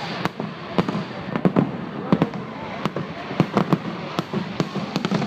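Aerial fireworks bursting in quick, irregular succession, sharp bangs about three a second over a steady background rumble.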